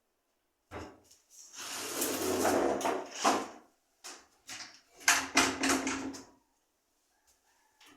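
Wood being handled and worked: a knock, then a long scraping slide of wood on wood, then a quick run of sharp wooden knocks.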